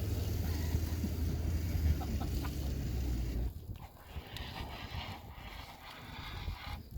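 Extinguisher drill on a training pan fire: a steady low rushing that cuts off suddenly about three and a half seconds in. A quieter background follows.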